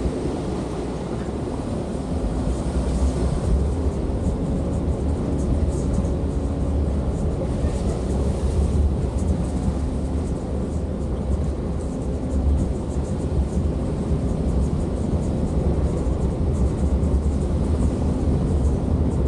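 Steady low rumble of a running vehicle, with a faint steady hum over it.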